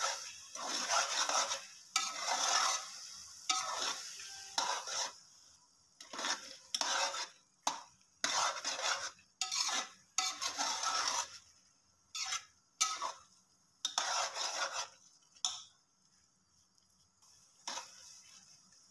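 Metal spatula scraping and stirring thick grated-carrot halwa against the sides and bottom of an aluminium pot, while the milk cooks down and dries out. It is a fast, uneven run of scraping strokes that stops with a few seconds to go, leaving a few faint strokes near the end.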